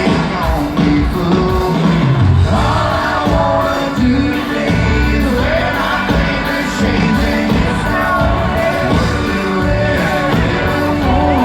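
Live country-rock band playing loud, with singing over drums, bass and guitars.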